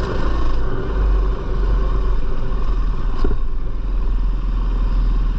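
Four-stroke single-cylinder dirt bike engine running steadily on a trail ride, with a sharp knock about three seconds in.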